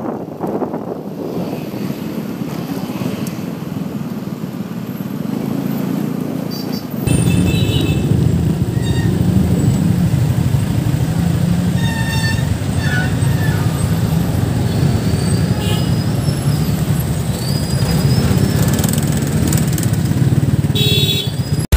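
Street traffic heard from a moving vehicle: engines and road noise with wind rumble on the microphone. The rumble gets louder about seven seconds in.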